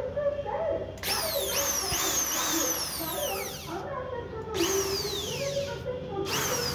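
Planet Power EID-700 13 mm electric drill run in short trigger bursts, its motor whine rising as it spins up and falling as it winds down, several times from about a second in. It is a test run of the freshly repaired drill with new 6001/608 bearings.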